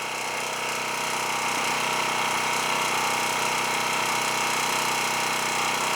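Champion 4000-series portable generator running steadily, heard from about 20 feet away, where it meters about 73 dB.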